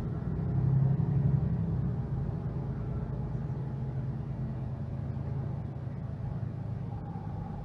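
Mercedes-Benz Citaro G articulated bus's OM457hLA inline-six diesel engine running with a steady low drone. It swells louder for about a second, roughly a second in, then settles back.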